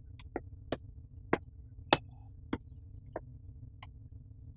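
Footsteps of dress shoes on a paved driveway, a sharp click about every 0.6 s, over a faint steady background hum.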